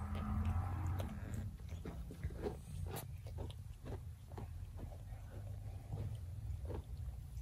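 Mother cat purring with a steady low rumble while she licks and nuzzles her newborn kittens, with many small wet clicks from the licking and the kittens suckling at her belly.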